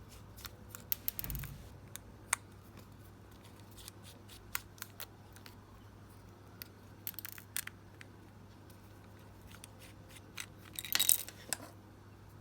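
Scattered small clicks and ticks of a small screwdriver and tiny screws being worked out of a car key fob's plastic case, with a louder clatter of handling near the end.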